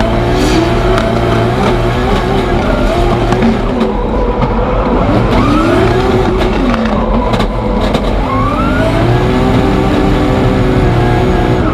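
Drift cars on track, engines revving up and down at high revs, with tyre squeal over the top.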